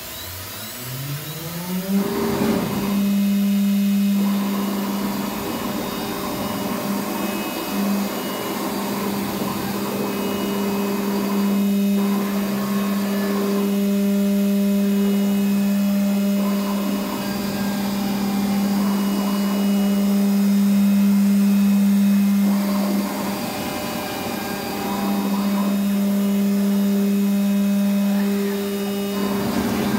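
The MultiCam MG-205's 10 hp Euro spindle spins up, rising in pitch over about two seconds, then runs at a steady pitch of about 12,000 RPM with no load on the tool. Spells of rushing mechanical noise from the gantry moving on its servo-driven axes come and go on top.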